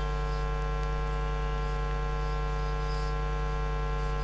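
Steady electrical mains hum: a constant low drone with many evenly spaced overtones, unchanging throughout.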